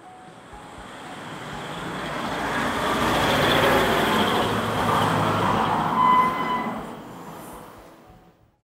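A vehicle passing by: a broad rumbling noise that swells to a peak through the middle and fades away, with a brief high squeal-like tone near the end of the peak.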